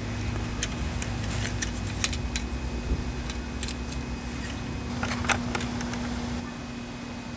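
Light, irregular clicks and rattles of small model parts being handled as a tow bar is brought up to the pintle hook of a 1/6 scale RC truck. A cluster of clicks comes about five seconds in, over a steady low hum.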